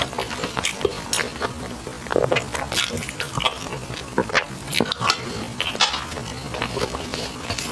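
Close-miked chewing of fried glutinous rice snacks: irregular sticky smacks and crisp crackles, several a second.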